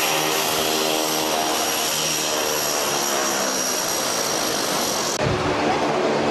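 Cessna Caravan's single turboprop engine running on the ground: a steady engine drone with a high, even turbine whine. About five seconds in the whine drops out and a lower steady engine drone carries on.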